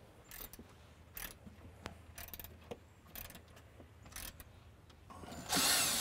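Socket ratchet clicking in short strokes about once a second as the deck bolts at the railing post's base are loosened. About five seconds in, a cordless drill/driver starts running, the loudest sound, backing out the screws that hold the post to the handrail.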